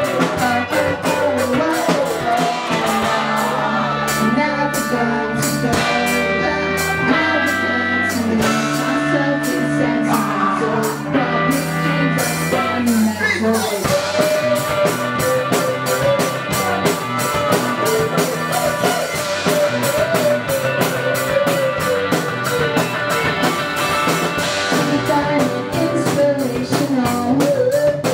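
Live indie pop band playing a song: electric guitars, bass and drum kit, with a lead voice singing through the PA that comes to the fore about halfway through.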